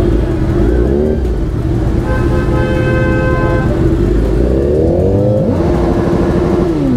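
Motorcycle engine in stop-and-go traffic, held at a steady rev with throttle blips rising in pitch about a second in and again near five seconds. A vehicle horn sounds for about a second and a half in the middle.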